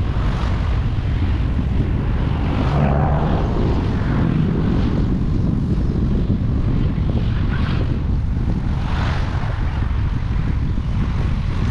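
Car driving along a road: a steady rumble of engine and tyre noise with wind on the microphone.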